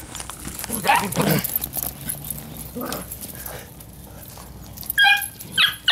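Pocket beagle puppies giving short, high-pitched cries while they play, with a couple close together about five seconds in.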